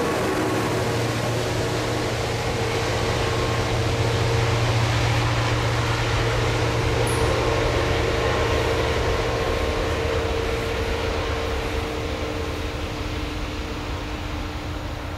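Diesel locomotives of a heavy freight train (a Siemens ER 20 and a MaK G2000) running away into the distance: a steady engine drone with several held tones over a broad rushing noise. The low hum weakens after about nine seconds and the whole sound slowly fades near the end.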